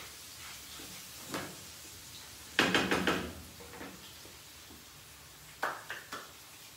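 A wooden spatula knocking against a frying pan: one knock about a second in, then a quick run of louder knocks and rattles near the middle. Near the end come three sharp hand claps.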